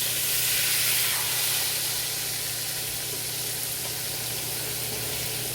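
Marinated milkfish frying in hot oil in a pan: a steady sizzle, a little louder in the first second or so before it settles.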